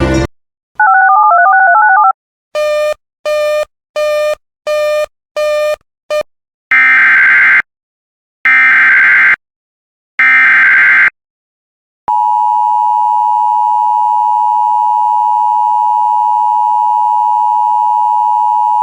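Emergency Alert System tones: a burst of warbling data tones near the start, then six short beeps. Next come three bursts of SAME header data about a second apart, announcing the next alert. About two-thirds of the way in, the steady two-tone EAS attention signal begins and holds.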